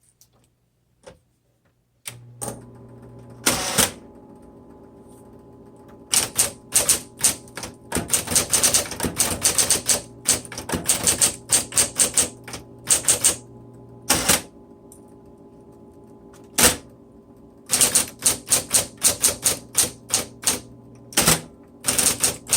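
Smith Corona Electra 220 electric typewriter: its motor starts humming steadily about two seconds in, then the keys strike the paper, a few single strokes at first and then quick runs of typing with short pauses between.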